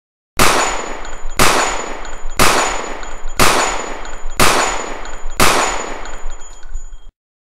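Six gunshot sound effects, about one a second, each with a long fading tail, with a faint high steady tone between them; the sequence cuts off suddenly near the end.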